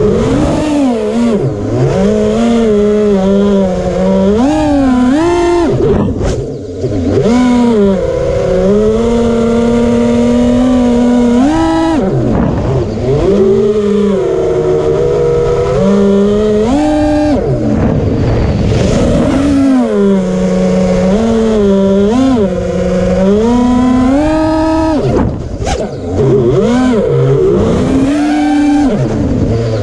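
FPV quadcopter's DYS Samguk brushless motors whining, the pitch rising and falling with throttle, with a buzzing that the owner calls weird.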